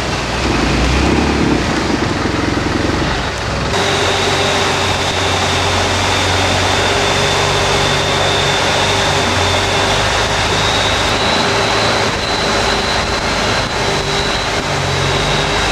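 Steady running noise of a motor vehicle, with a steady high-pitched tone over it; the sound changes abruptly about four seconds in.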